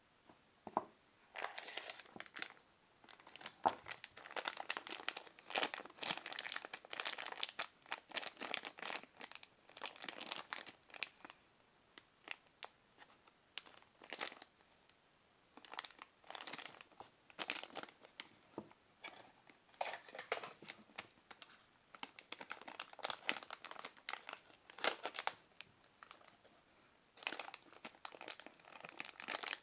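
Packaging being handled and unwrapped: plastic or paper crinkling in repeated short rustling bursts with brief pauses.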